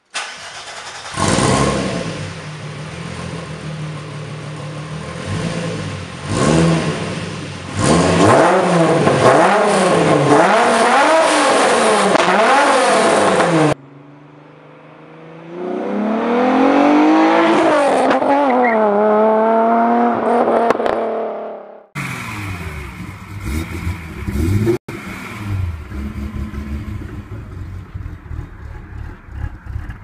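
VW Golf Mk3 engines in three separate recordings. First, one catches about a second in and is revved repeatedly, its pitch swinging up and down about once a second. Next, a car accelerates with its pitch climbing, then cuts off. Last, an engine idles with an even beat of exhaust pulses.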